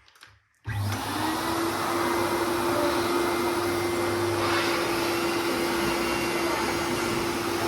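Miracle Mate canister vacuum cleaner switched on about two-thirds of a second in: the motor spins up with a short rising whine, then runs steadily with a constant rush of air.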